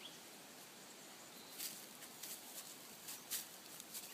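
Faint woodland ambience on a breezy day: a steady hiss, with a handful of short, sharp rustles from about a second and a half in.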